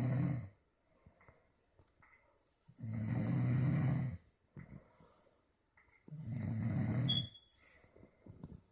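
A sleeping person snoring, with deep rasping snores about every three seconds. One snore is ending right at the start, then come two full snores about a second long each, with quiet gaps between.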